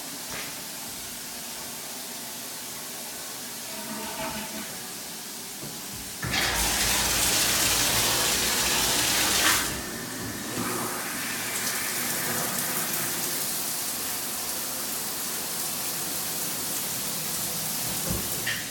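Water running in a bathroom fixture, with a much louder rushing gush from about six to nine and a half seconds in, then a steadier flow.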